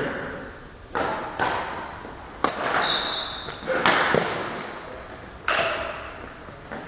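Badminton rally in a sports hall with a long echo: five sharp racket strikes on the shuttlecock about every one to one and a half seconds, with two short high squeaks of court shoes on the floor in the middle.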